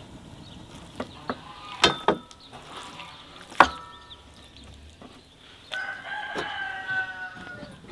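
Several sharp knocks in the first half, like a blade striking a wooden chopping board. A rooster crows once in one long call, starting about three-quarters of the way in.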